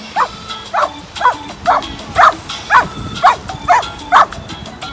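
A dog barking repeatedly, about nine barks at a steady two a second.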